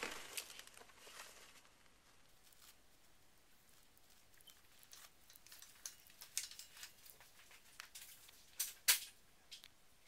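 Faint rustling and scratching in wood-shaving bedding inside a plastic tub as a California kingsnake strikes a live mouse and coils around it. Scattered light clicks, a louder rustle at the start, and two sharp ticks about nine seconds in.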